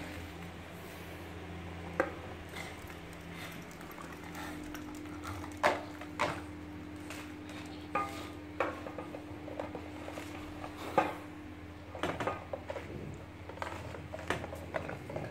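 Irregular sharp clicks and clatters as a French bulldog paws and tugs at a plastic bag under a metal clothes rack, loudest about two, six and eleven seconds in, over a steady low hum.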